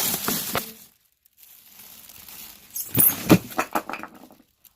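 Plastic packaging and frozen-solid pouches of soup being handled: crinkling plastic, with a burst of sharp cracks and clicks about three seconds in.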